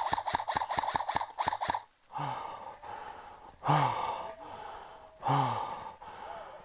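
An airsoft gun firing a quick string of about ten shots, about five a second, for roughly two seconds. Then the player breathing hard, with three loud voiced exhalations about a second and a half apart, each falling in pitch.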